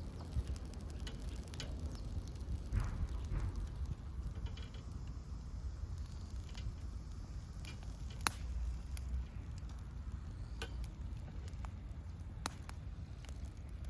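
Wood fire crackling, with irregular sharp pops scattered through it, over a steady low rumble.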